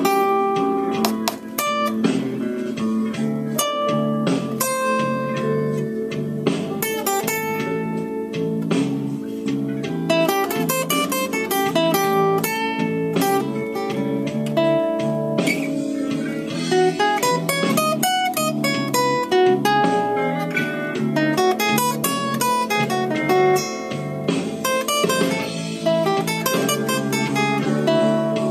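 Solo acoustic guitar played with the fingers, blues riffs with a repeating low bass figure under quicker higher single notes.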